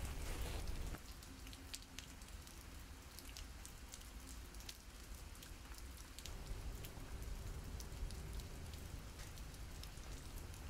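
Rain falling steadily, with scattered drop ticks over a low rumble; it drops a little in level about a second in.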